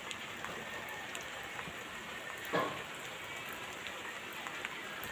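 Steady rain falling, an even hiss dotted with small drop ticks, with one brief louder knock about halfway through.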